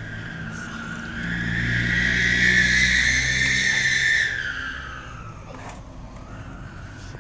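A motor vehicle passing by, its engine and tyre whine swelling to a peak and then dropping in pitch as it goes past and fades away.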